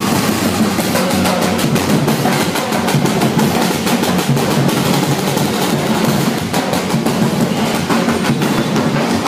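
Drums playing a fast, continuous beat, snare and bass drums together, loud throughout.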